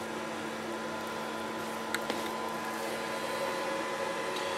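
A steady mechanical hum with a faint click about two seconds in.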